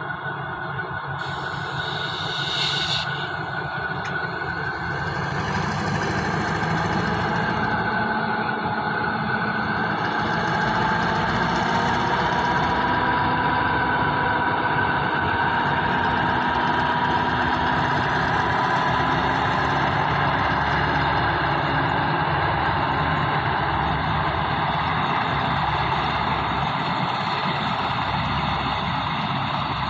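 Alsthom diesel-electric locomotive's engine running under power as it pulls a passenger train away, growing louder over the first several seconds and then holding steady, with a whine that slowly climbs in pitch. A brief hiss about a second in.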